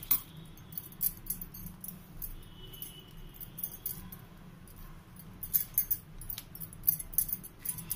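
Oiled polythene sheet crinkling and crackling with light ticks as fingers press a soft ball of rice-flour and jaggery dough flat on it and handle the next lump. The crackles come in a spell at the start and again more densely in the last two or three seconds, over a steady low hum.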